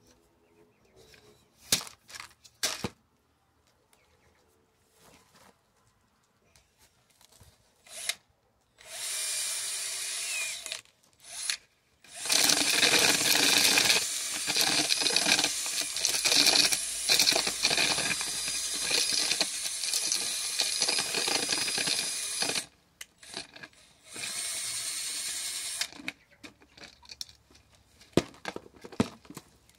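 Cordless drill spinning a dried corn cob inside a bolt-studded PVC pipe. For about ten seconds in the middle it makes a loud, dense rattle as the bolts strip the kernels off. Shorter runs of the drill come before and after, with scattered clicks of kernels and cobs being handled near the start and the end.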